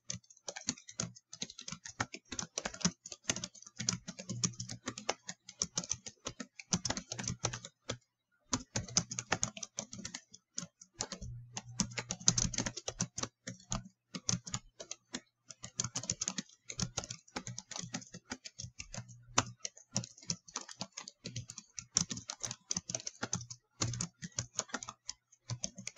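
Typing on a computer keyboard: quick runs of key clicks with short pauses between words and phrases as a comment is typed out.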